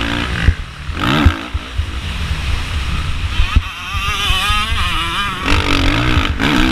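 A 2013 Suzuki RM-Z450's single-cylinder four-stroke engine revving hard and dropping back over and over as the throttle is worked around a motocross track, held at high, wavering revs through the middle.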